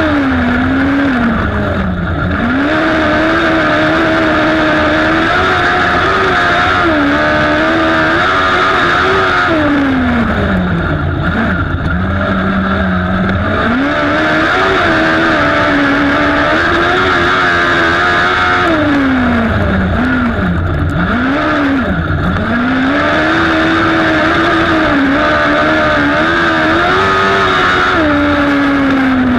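Speedway racing sidecar's engine running hard at high revs. Its pitch drops and climbs back several times as the throttle is eased and reopened through the bends. Heavy wind and track rush on the onboard microphone runs underneath.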